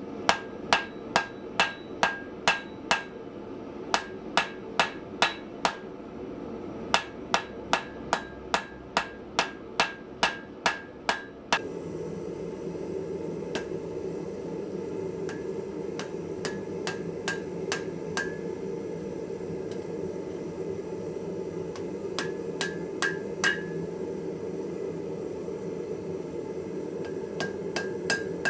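Hand hammer striking hot steel on an anvil, about two blows a second in runs, each with a short ring from the anvil, while drawing out a forged part. About eleven seconds in, the hammering gives way to a louder steady hum with only occasional lighter blows.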